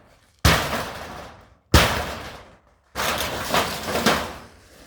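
Barn being torn down: two heavy impacts on the structure, each followed by crashing and rattling that dies away over about a second, then a longer stretch of crashing and clattering about three seconds in as more of it gives way.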